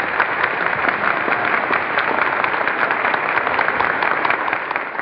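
A large audience applauding steadily at the close of a speech. It is heard through an old radio broadcast recording, so it sounds narrow and dull with no high end.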